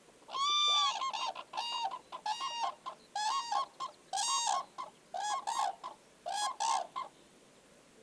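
A pair of common cranes giving their unison call: a run of loud, ringing, trumpet-like calls in two interleaved voices at different pitches. It starts about half a second in and stops about a second before the end.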